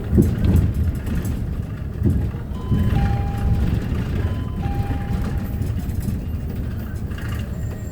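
Cabin noise of a CNG-powered Hyundai New Super Aerocity city bus under way: a steady low engine and road rumble with a couple of thumps. A two-note electronic chime, high then lower, sounds twice in the middle.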